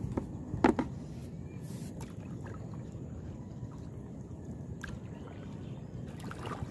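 Steady low wash of shallow lake water lapping, with two short knocks within the first second and a small splash near the end as a diver breaks the surface.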